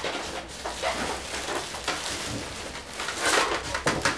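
Polystyrene foam packaging case rubbing and squeaking as its moulded halves are pulled apart, in several uneven scrapes.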